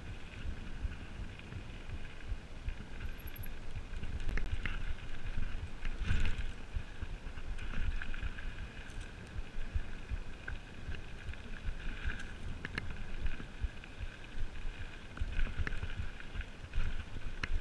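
Mountain bike rolling over a dirt singletrack: a steady low rumble of tyres on dirt, with scattered knocks and rattles as the bike goes over bumps, the loudest about six seconds in.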